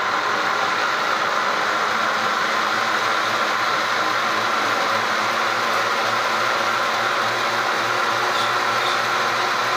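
Braun type 4250 juicer-blender running steadily: its electric motor spins the blade through a jug of red fruit with an even whine.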